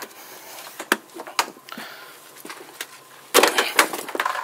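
Sharp clicks from a fiberglass floor ski-storage hatch's pull-ring latch being worked, then about three seconds in a louder burst of scraping and knocking as the carpet is flipped back and the hatch lid is lifted.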